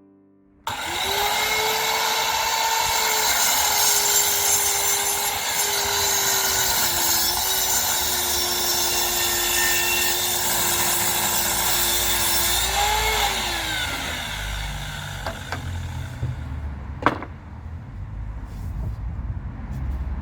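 Electric power saw cutting through wood: the motor spins up abruptly, runs steadily with a slight dip under load, and winds down after about thirteen seconds. A single sharp knock follows a few seconds later.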